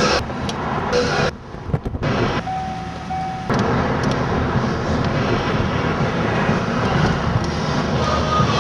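Dense rumbling noise, cut off and brought back abruptly several times, with a brief steady tone about two and a half seconds in.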